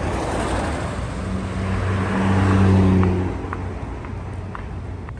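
A car driving past, its engine hum swelling to loudest about two and a half to three seconds in and then fading away.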